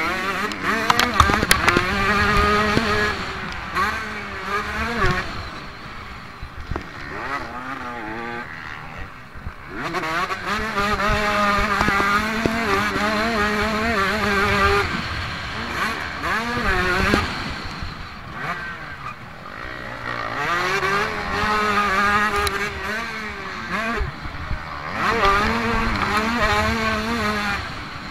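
Motocross bike engine heard from on board, revving hard and dropping back again and again as the rider accelerates and shifts through the gears. Twice it eases off for a few seconds before pulling hard again.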